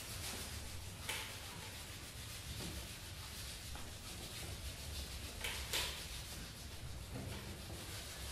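Cello and trombone played with extended techniques: a steady, airy rubbing and scraping noise without clear pitched notes. It comes from a sheet rubbed against the trombone and from bow noise on the cello. The noise swells briefly about a second in and again just past the middle.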